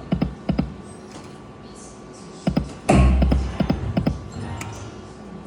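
Huff N Even More Puff slot machine's electronic reel sounds: quick runs of short clicks as the reels stop one after another, and a heavier hit with a low thump about three seconds in as a new spin starts, followed by more stop clicks.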